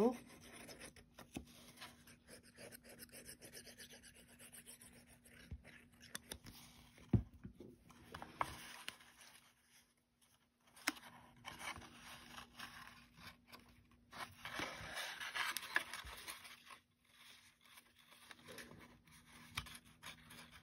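Cardstock being handled, folded and pressed by hand while it is glued: soft paper rubbing and scraping, with a few sharp taps, the loudest about seven seconds in.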